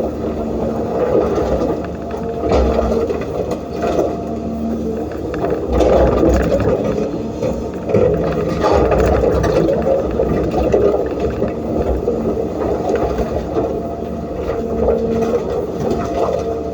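Cat 320D hydraulic excavator's diesel engine running steadily under load, with its bucket scraping through sand and stones. The scraping and grinding get louder around six seconds in and again from about eight to eleven seconds.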